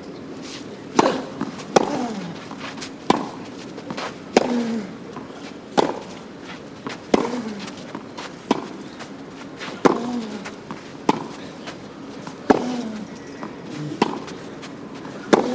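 Tennis ball struck back and forth by rackets in a baseline rally, a sharp hit a little more than once a second. Many of the hits are followed by a short falling tone.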